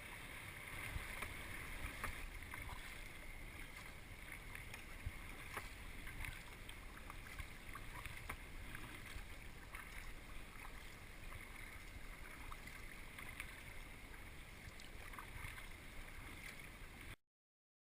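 Water splashing and lapping around a sea kayak, with many small splashes and drips over wind rumble on the microphone. It cuts off suddenly near the end.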